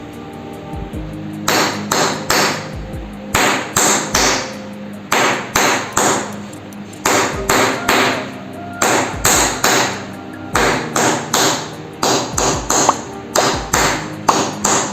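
Chiropractic massage hammer striking the leg in quick, sharp taps, about two a second, in short runs with brief pauses, over steady background music.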